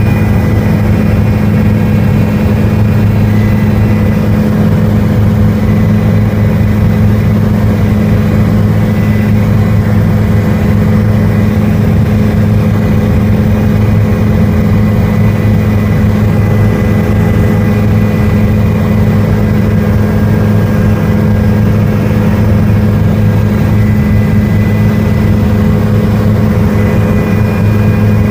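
Helicopter engine and rotors running with a loud, steady drone, heard from on board.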